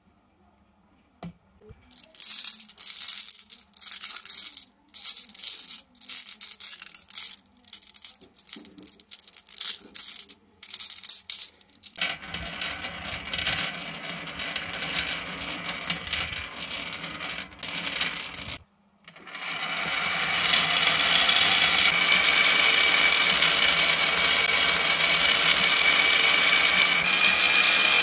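Glass marbles rolling down wavy grooved wooden tracks, clicking against the wood and against each other. Scattered clacks at first turn into a dense clatter; after a short break a little past halfway, a steady continuous rattle of many marbles rolling together.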